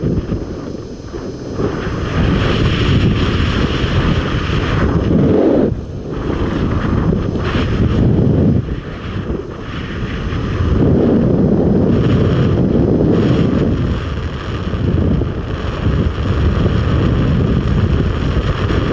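Loud wind noise buffeting a helmet-camera microphone as a BASE jumper descends under parachute, a rushing roar that swells and eases in gusts every few seconds.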